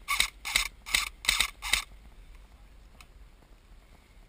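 Quick footsteps crunching over dry ground, about two to three steps a second, that stop about two seconds in.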